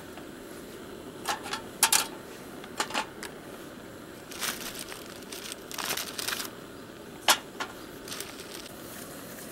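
Scattered clicks and knocks with brief rustles: cylindrical molded charcoal briquettes taken from their plastic-wrapped box and set down on the metal grate of a small steel grill box.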